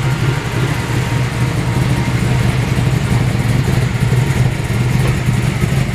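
A Ford car engine idling steadily at a loud, even level with no revving.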